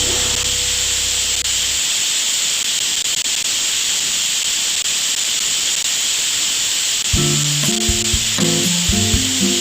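Steady sizzling hiss of welding on iron, running without a break. Background music stops near the start and comes back in about seven seconds in.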